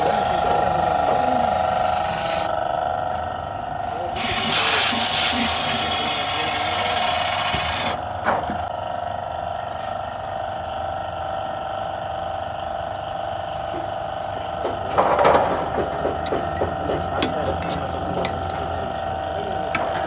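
A steady mechanical hum with two held tones. About four seconds in, a spray gun hisses loudly for some four seconds. Later a short burst of noise is followed by a run of knocks and clatter of metal parts in a metal tray.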